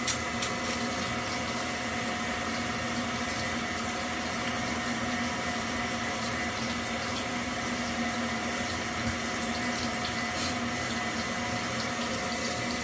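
Tap running steadily to draw hot water through a Worcester Bosch combi boiler under test, with a steady hum beneath the rush of water.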